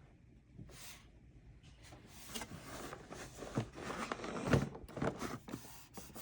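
Handling noises of unpacking: scattered light knocks, clicks and rustles of packaging and plastic. The noises start about two seconds in after a near-silent moment.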